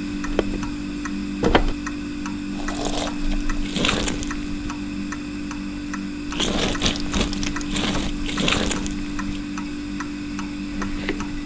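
Water splashing and pouring in several short bursts over a steady low hum.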